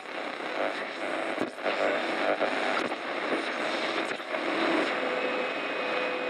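Intro sound effect for a title card: a static-like hissing wash with a few sharp clicks, joined by a couple of steady tones about five seconds in.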